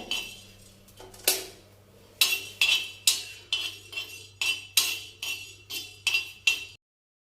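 A utensil stirring and scraping black peppercorns and cloves around a hot tava as they dry-roast, about two strokes a second, each with a brief metallic ring. The sound cuts off suddenly near the end.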